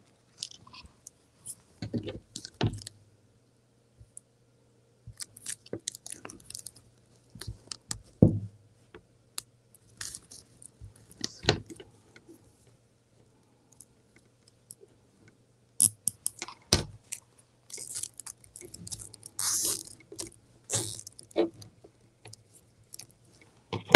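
Hands rustling and crinkling poly burlap mesh petals while fastening them to a wire wreath form, with scattered small clicks and scrapes and a longer stretch of rustling near the end.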